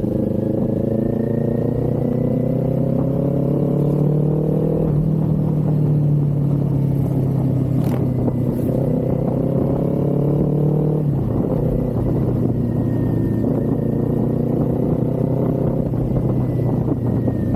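Kawasaki Z400's parallel-twin engine and exhaust pulling under way, the pitch climbing slowly through each gear. It drops sharply at upshifts about five seconds in and again about eleven seconds in.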